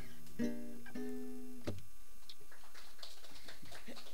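Classical guitar playing the closing chords of a song: two plucked chords ring out and stop about halfway through. Faint small clicks follow.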